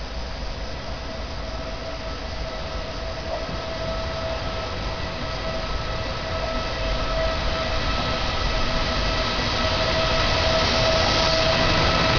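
Regional train led by an E464 electric locomotive approaching along the track, its rumble and a steady, several-pitched electric whine growing steadily louder as it nears.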